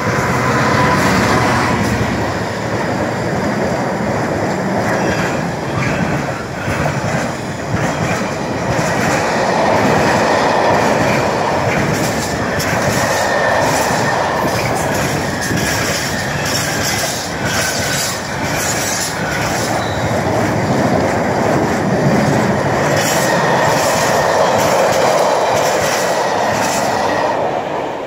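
Two Freightliner Class 66 diesel locomotives passing, then a long container train rolling by with a steady clatter of wagon wheels on the track. Thin high squealing lines run through it, and the sound stays loud until the last wagons have gone.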